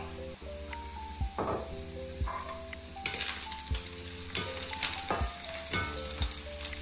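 Chopped onion frying in hot oil in a pan, sizzling, with a spatula stirring it now and then. The sizzle gets louder about halfway through. The onion is being fried until golden to flavour the oil.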